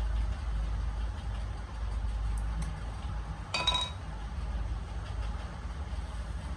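A single ringing metal clink a little past halfway, a spanner knocking on metal while the 12 mm gear-oil bolt on the gearbox is undone, over a steady low engine rumble.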